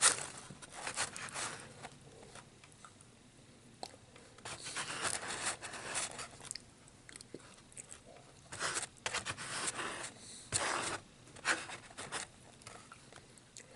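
Close eating sounds: bites and chewing in several bursts of a second or two, with quieter pauses between them.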